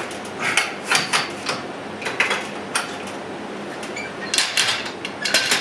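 Irregular clicks and clanks of cable fittings and a bar being handled on a BioForce home-gym cable machine, with a quick cluster of clicks near the end.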